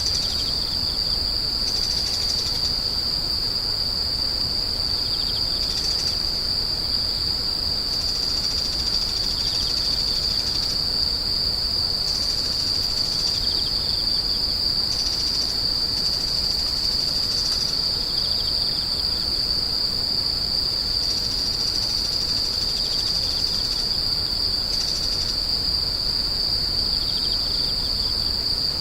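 Grass insects calling in a steady, unbroken high-pitched trill, with other insects' calls fading in and out every few seconds just above and below its pitch.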